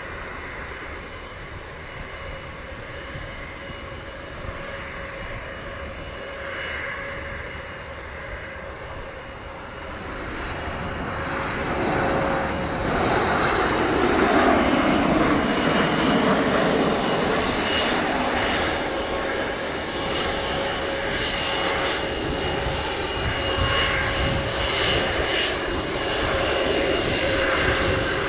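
A Boeing 737 MAX 8's CFM LEAP-1B jet engines on landing approach. The engine noise swells as the jet passes close by, about ten to fourteen seconds in, with a sweep falling in pitch as it goes past, then runs on loud as the jet flares toward the runway.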